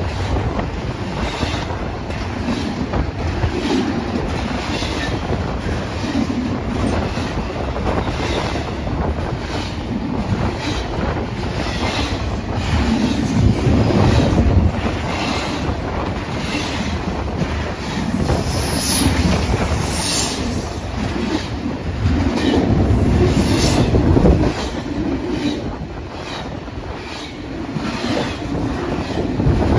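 Double-stack intermodal freight cars rolling past at speed: steel wheels clacking over rail joints in repeating groups over a heavy rumble, with brief high wheel squeals in the middle.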